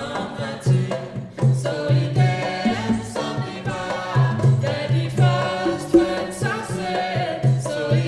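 Live acoustic band playing a song: several voices singing together in harmony over steady hand-drum percussion and repeated low bass notes.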